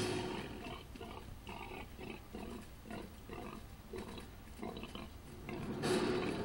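Documentary sound-effect grunting of a running Daspletosaurus, a tyrannosaur: a quick series of short grunts, about three a second, with a louder burst near the end.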